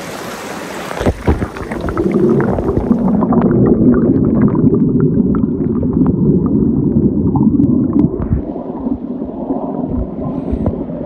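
Rushing creek water heard through a microphone dipped under the surface: a loud, muffled gurgling rumble with little treble. A few knocks and splashes about a second in, as the microphone goes into the water.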